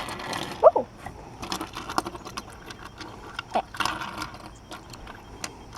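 Light, irregular clicking and clattering of a small die-cast Hot Wheels toy wheelchair being handled and rolled, with a brief "Oh" near the start.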